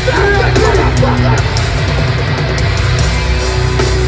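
Live hardcore band playing loud, with heavily distorted electric guitars, bass and pounding drums, heard from the audience through a phone microphone.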